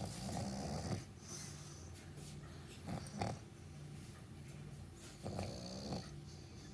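A sleeping pet snoring in slow, regular breaths, with three louder snores about two and a half seconds apart.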